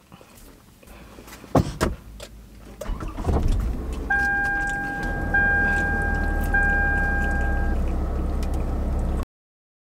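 A couple of knocks, then a car engine starts about three seconds in and runs steadily. Over it the car's chime sounds three long tones in a row. The sound cuts off abruptly near the end.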